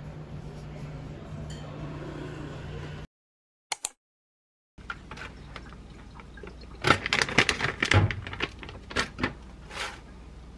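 A steady low room hum cuts off about three seconds in. Then come chicken breast nuggets tipped out of a plastic bag onto a metal wire air-fryer rack: a flurry of sharp clicks and rattles lasting about three seconds.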